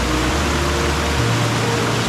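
Fast-moving river rushing, a steady even roar of water, with background music's low sustained notes under it.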